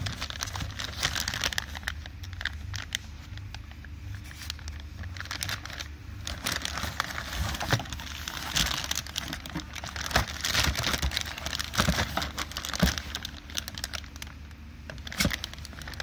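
Clear plastic bags crinkling and crackling as they are handled, with irregular sharp clicks; the bags hold plastic timing chain guide rails from a timing chain kit.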